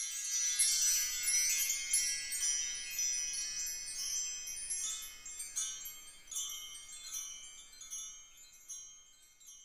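Background music of high, tinkling chimes: separate struck notes ringing and fading one after another, thinning out and dying away near the end.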